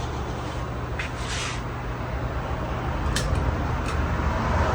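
Casablanca Lanai ceiling fan running with a steady low hum and a few light ticks. Its motor has an open winding, so it only runs at its highest speed after being kick-started by hand.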